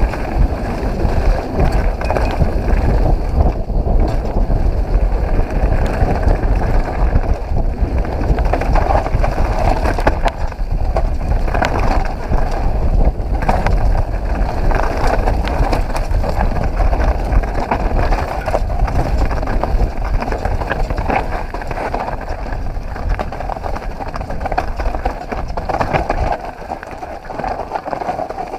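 Mountain bike ridden fast down a rough dirt trail over dry leaves: continuous rumble and rattle of the tyres on loose ground and the bike shaking over bumps, with many small knocks.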